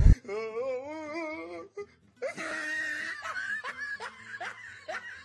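Laughter over background music: one long, wavering laugh, then after a short pause a run of short rising giggles, over a steady low bass line.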